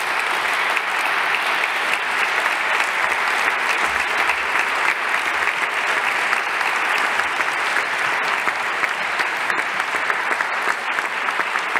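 Applause from a large audience and the people on stage, many hands clapping steadily.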